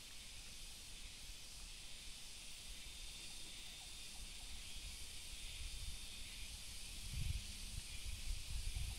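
Faint open-air lakeside ambience: a steady high hiss, with wind buffeting the microphone in low rumbling gusts that grow stronger in the last few seconds.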